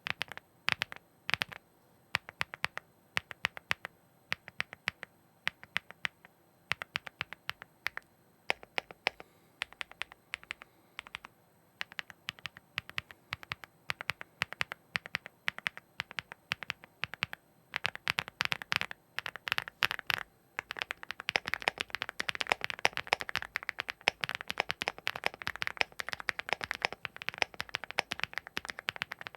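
Keystrokes on an Epomaker Galaxy 70 gasket-mount mechanical keyboard with factory-lubed HUANO Blossom Odyssey linear switches, a thocky sound. Single keys are pressed at scattered intervals at first, then about two-thirds of the way in it turns into fast, continuous typing.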